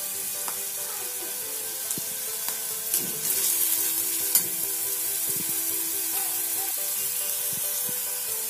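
Chopped onion sizzling steadily as it fries in oil in a kadhai over a medium gas flame, with a metal spatula stirring it and a couple of sharp clicks against the pan about three and four seconds in.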